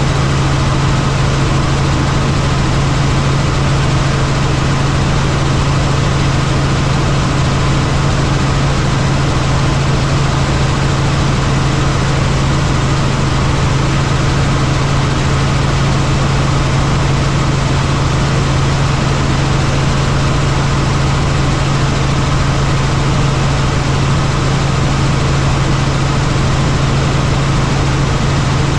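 Light helicopter's engine and rotor noise heard inside the cabin: a loud, steady drone with a strong low hum.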